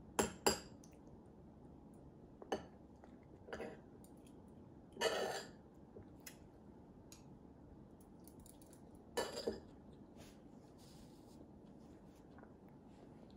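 Cutlery clinking against a ceramic plate: a few scattered clinks and knocks, a longer rattle about five seconds in and a quick pair of clinks about nine seconds in.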